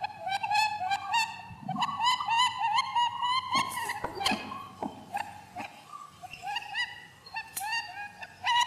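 Many short, high, squeaky animal calls in quick succession, several overlapping, used as the rabbit sounds of a cat-game soundtrack.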